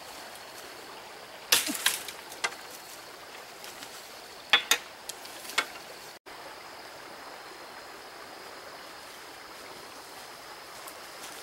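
A long bamboo pole giving a few sharp knocks and cracks as it is handled, in two clusters in the first half, over the steady rush of a small stream.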